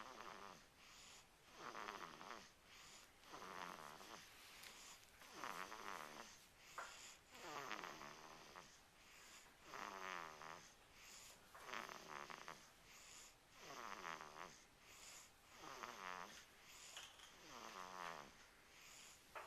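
A baby snoring softly in its sleep, one snore about every two seconds, each breath carrying a wavering pitched note.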